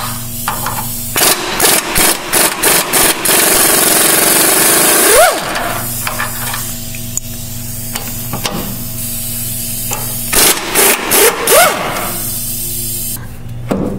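Snap-on impact wrench working the frame bolts of a power steering gearbox loose. It rattles in rapid bursts over the first five seconds and again around ten to twelve seconds, each stretch ending in a short rising whine.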